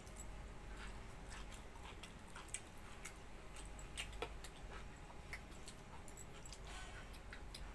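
Faint eating sounds: chewing, lip smacks and scattered small wet clicks as mouthfuls of watered rice and fried pointed gourd with potato are eaten by hand.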